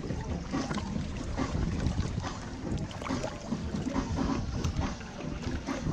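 Shallow seawater lapping and splashing right against the microphone at the surface, with wind buffeting the microphone.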